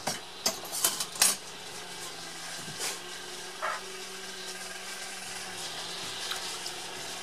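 Several sharp metallic clicks in the first second and a half, like a whisk knocked against the rim of a stainless steel pot. After that comes a steady hiss from the gas burner heating the pot of sauce as it comes to the boil.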